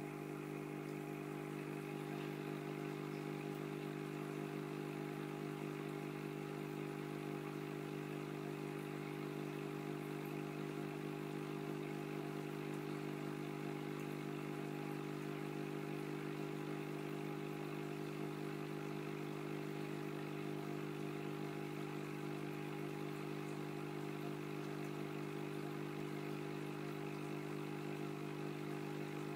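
Steady electric hum of aquarium equipment, an even drone of several pitched tones that does not change.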